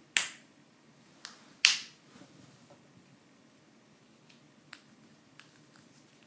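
Two sharp wooden snaps about a second and a half apart, with a fainter click between them and a few light ticks later, from laser-cut plywood parts of a wooden mechanical-gears locomotive kit being handled and fitted together.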